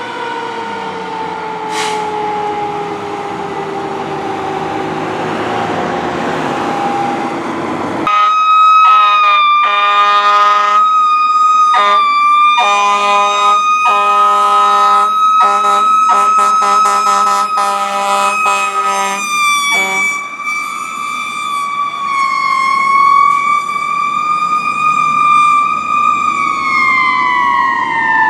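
Fire truck siren falling slowly in pitch as it winds down. About eight seconds in, a louder fire engine siren takes over with a rapid run of horn blasts over it. The horn blasts stop after about twelve seconds, and the siren wavers, then winds down again near the end.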